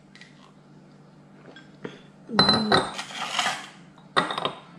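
Hard clinks against a drinking glass: a cluster of clinks with a brief ringing tone about two and a half seconds in, then one more clink near the end.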